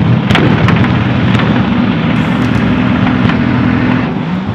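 Two Toyota Supras doing burnouts at a drag strip start line: engines held at high revs while the rear tyres spin, with a few sharp cracks over the top. The revs drop away near the end.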